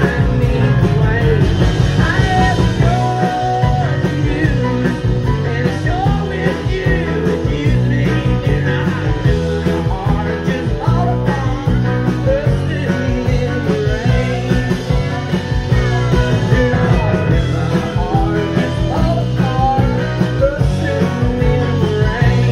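A country band playing live: strummed acoustic guitar, electric bass, keyboard, drums and electric guitar, with a man singing lead.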